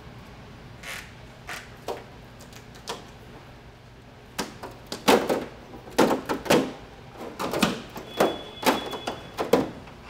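Large plastic diffuser sheets from an LED TV's backlight being pried loose and lifted by hand: a run of irregular knocks, clicks and flexing sounds, sparse at first and coming thicker and louder from about four seconds in.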